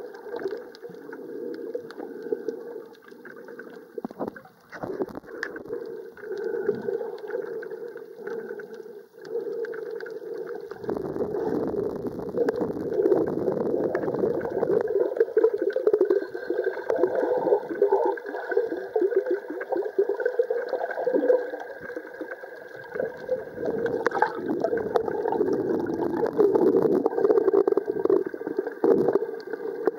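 Muffled water noise picked up by a camera under water while snorkeling: a dense swishing and gurgling, louder from about eleven seconds in.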